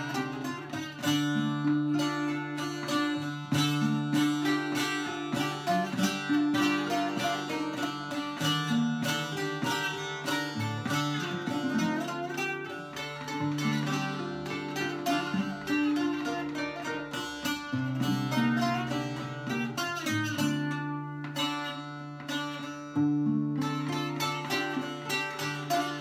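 Bağlama (saz) and acoustic guitar playing an instrumental duet: a melody of quick plucked notes, with runs of rapidly repeated notes, over a low plucked line.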